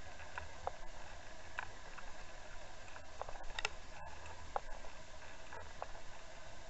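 Underwater recording from a camera towed with a fishing lure: a steady hiss of water rushing past, with irregular faint ticks and clicks and one sharper click about three and a half seconds in.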